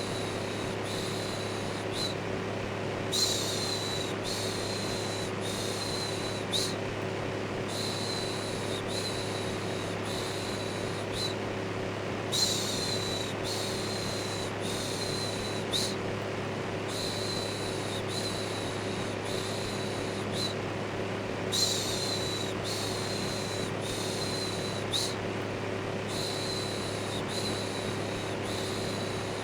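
Steady electric fan noise with a low motor hum, overlaid by a looped human 'shhh' shushing. The shushes are short hisses, about one a second, coming in runs of four or five with a brief break between runs.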